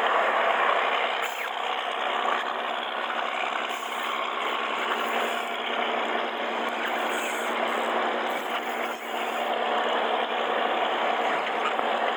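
A boat engine running steadily with a constant low hum, under a steady rush of wind and water noise.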